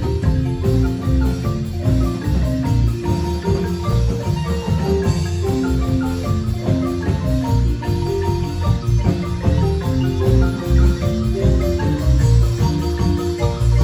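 Live marimba band playing dance music: quick, repeated mallet notes on the marimba over a heavy, pulsing bass.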